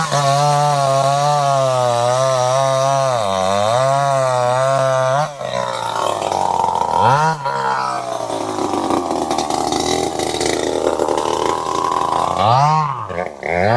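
Two-stroke chainsaw engine running at high revs with a steady buzzing tone. From about five seconds in the sound turns rougher and noisier, with the revs dipping and recovering twice, typical of the chain cutting into wood. The steady tone returns just before the end.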